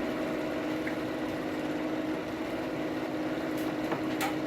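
Forge running with a steady humming drone, with a few light metallic clicks near the end.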